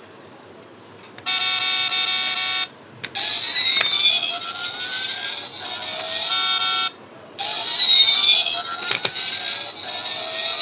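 Electronic synthesized sounds: a steady buzzing tone for about a second and a half, then overlapping rising and falling sliding tones, broken by a short pause partway through.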